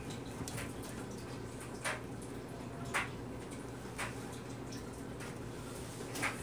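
Homemade slime being squished and kneaded by hand, giving short wet pops and squelches about once a second over a steady low hum.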